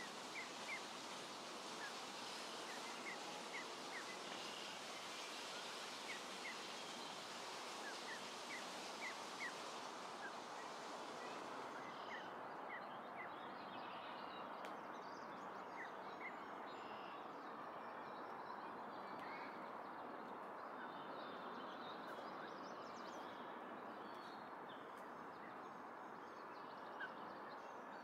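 Faint bird chirps over a steady background hiss, coming in quick series through the first half and sparser later. About twelve seconds in, the highest part of the hiss drops away.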